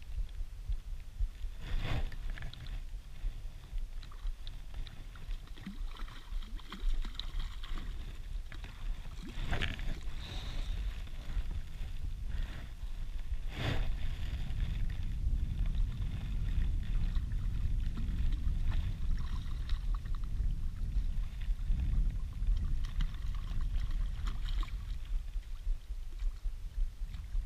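Wind rumbling steadily on the camera microphone, with a few sharp knocks from handling, about 2, 9.5 and 14 seconds in.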